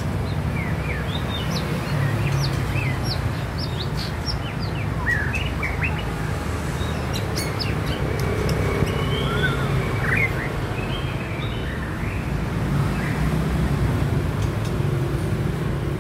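Male white-rumped shama singing a string of short sweeping whistled notes with a few longer whistles, thinning out after about ten seconds, over a steady low rumble.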